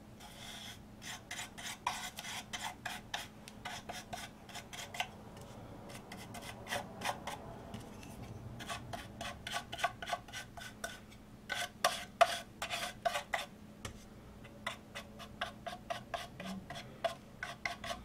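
Flat paintbrush brushing a coat of Mod Podge over napkin decoupage on a small wooden birdhouse: quick scratchy strokes, several a second, in bursts with short pauses.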